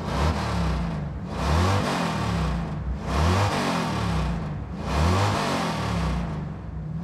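Race-car engines speeding past one after another, each pass swelling and fading about every one and a half to two seconds.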